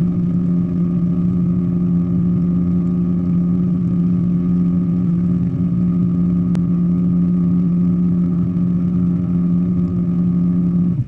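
Small boat's motor running steadily at cruising speed, an even hum that holds one pitch throughout.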